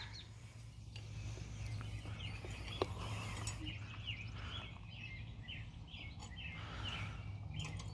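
Faint outdoor background: birds chirping again and again over a low steady hum, with a single light click about three seconds in.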